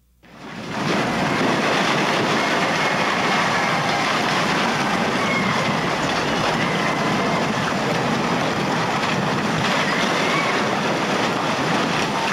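Tunnel boring machine's cutterhead grinding through rock as it breaks through to daylight: a loud, steady grinding noise that starts suddenly within the first second, with faint high squeals now and then.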